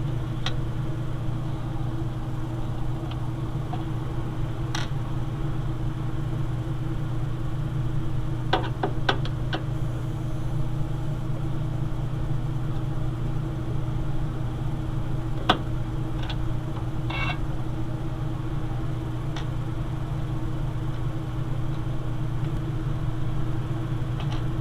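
Small scattered clicks and taps of a screwdriver backing out and handling the motherboard screws, a few close together about eight to nine seconds in, over a steady low hum.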